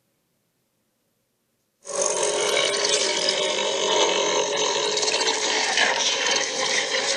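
Silence for about two seconds, then a dragon sound effect starts suddenly: a dense, rough, steady growl-like sound that holds at an even level.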